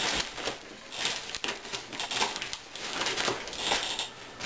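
A cardboard package being opened and unpacked by hand: packing material rustling and the box knocking and clicking in irregular bursts.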